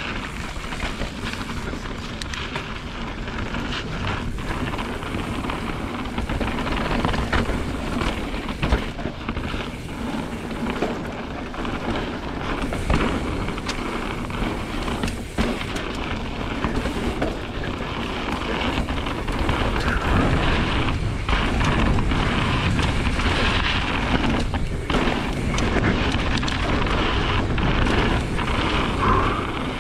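Mountain bike descending a downhill trail at race speed: a continuous rumble of tyres and bike over rough ground, studded with many short knocks and clatters from hits on the trail, with heavy wind buffeting on the microphone. It grows louder past the halfway point.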